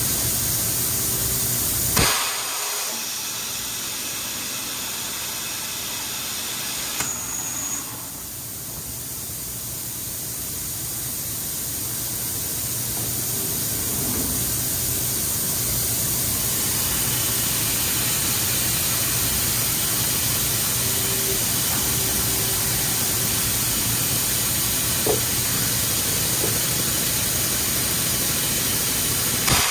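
Hunter automatic molding machine running with a steady hiss and hum. A loud clunk comes about two seconds in, another knock around seven seconds with a brief high whistle, and lighter knocks near the end.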